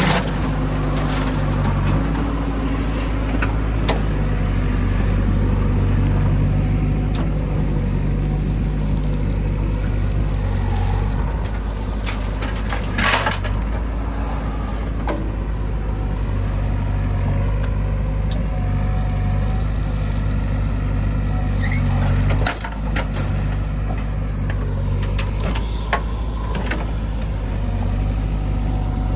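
Diesel engine of a JCB 3DX backhoe loader running steadily under load while digging and loading mud, with occasional knocks and a short hiss about halfway through.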